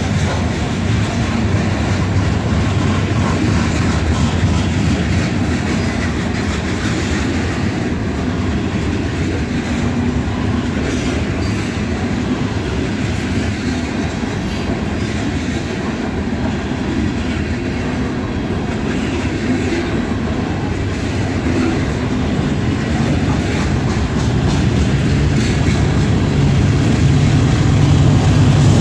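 Freight train of covered hopper cars rolling past: a steady rumble with the clickety-clack of wheels over the rail joints. Over the last few seconds a diesel locomotive's engine drone grows louder as a mid-train or rear locomotive draws near.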